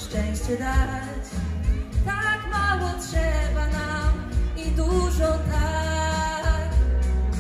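A girl singing long held notes into a microphone over a backing track with a heavy, steady bass, played through a stage sound system.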